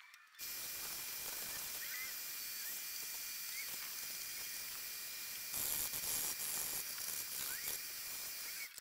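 Shop vacuum running, its hose sucking up debris around a freshly drilled hole in the laser cutter's sheet-metal chassis, with a few faint short squeaks. It starts just after the beginning, gets a little louder partway through, and cuts off near the end.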